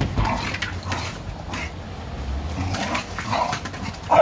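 A dog making a string of short, rough vocal noises every second or so while playing with a ball, with a sharper, louder one at the very end.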